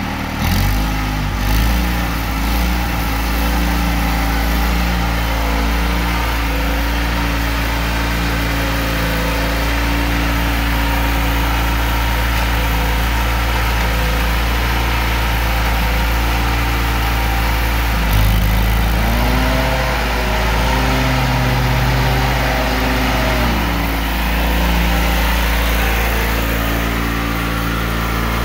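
Ford GT95 lawn tractor's engine running steadily as it drives. Its speed rises and falls briefly near the start, and again from about two-thirds of the way through, where it gets a little louder for several seconds.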